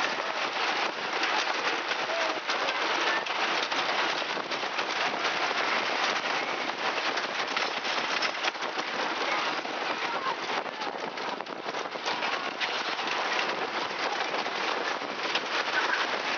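Wooden roller coaster train running along its track, heard from a seat in the train. A steady rattling, rushing noise comes from the wheels on the track and the air rushing past.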